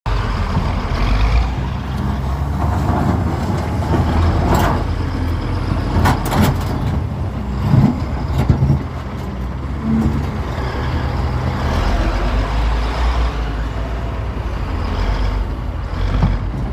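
Diesel engine of a large Caterpillar bulldozer running steadily under load as it works rocky ground, with a few sharp metallic clanks about a third of the way in.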